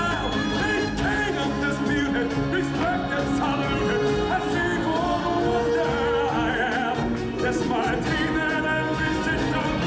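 Music with a singing voice over instrumental accompaniment.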